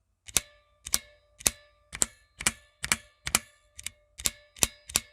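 Outemu brown mechanical keyboard switch pressed again and again right at the microphone, about two sharp strokes a second. Each stroke has a metallic clang and a faint ring, which the owner puts down to the spring or something inside the switch; he finds it annoying.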